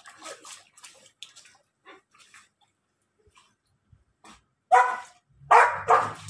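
A dog barking while swimming: one bark trailing off at the start, then a quick run of three short barks near the end.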